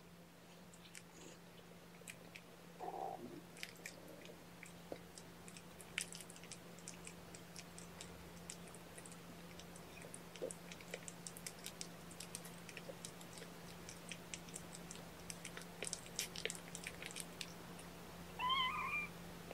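Cats: rapid small crunching clicks run throughout, with a short low call about three seconds in and a high kitten mew near the end. A steady low hum sits underneath.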